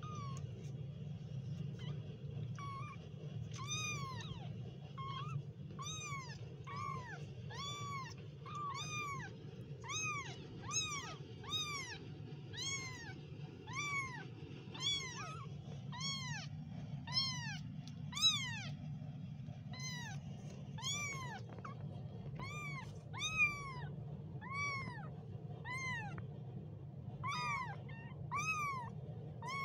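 Very young kittens mewing over and over: short, high cries that rise and fall in pitch, about one or two a second, over a steady low hum.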